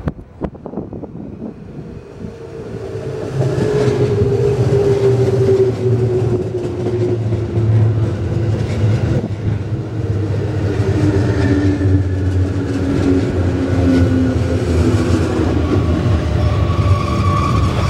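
JR West 221 series electric train running close past on the rails: a loud rumble of wheels on track that builds about three seconds in and holds, with a motor hum that slowly falls in pitch and a few knocks from the wheels.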